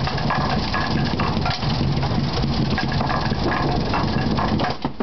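Candlepin bowling pinsetter machinery running: a steady low hum under continuous clattering and knocking of the mechanism and pins.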